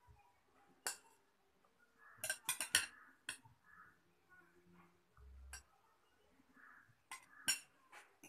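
A metal spoon clinking against glass tumblers and a glass bowl while fruit salad is spooned out: separate sharp taps, with a quick run of several clinks about two seconds in.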